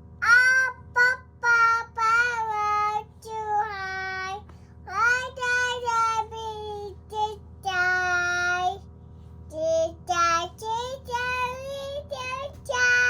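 A young child singing in a high voice, short wordless-sounding phrases of held and gliding notes with brief pauses between them.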